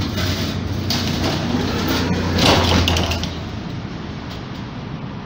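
Folding doors of a Tatra KT3UA tram working with a loud noisy clatter about two and a half seconds in, over the tram's steady low hum, which dies away shortly after.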